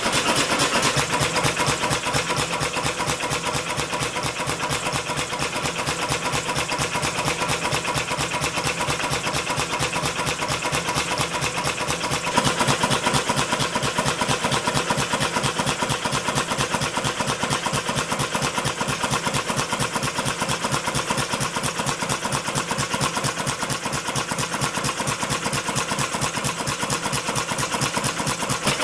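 Home-made double-expansion engine built from a two-cylinder air compressor, one power cylinder exhausting into a second expansion cylinder, running steadily with a fast, even beat. The sound changes slightly about twelve seconds in.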